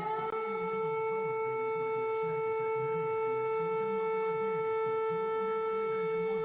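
Emergency alert siren tone held at one steady pitch with strong overtones, over a fainter wavering lower tone, starting to fall in pitch at the very end.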